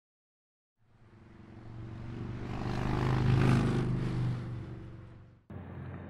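Motorcycle engine running, swelling to a peak about halfway through and then fading away. It cuts off abruptly shortly before the end, and a quieter steady hum follows.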